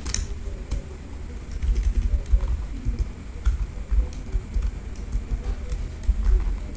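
Computer keyboard keystrokes, scattered irregular clicks, over a steady low rumble.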